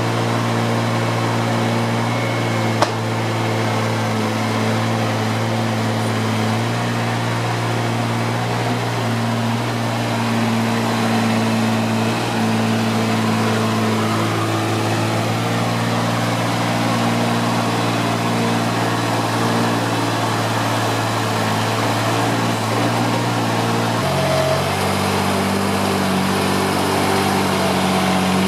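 An engine running steadily at a constant speed, with a single sharp click about three seconds in. Its pitch shifts to a new steady note near the end.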